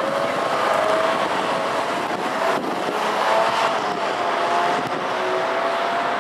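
Fireworks display heard from afar: a steady rushing noise with faint drawn-out whistling tones, and one sharp crack about two and a half seconds in.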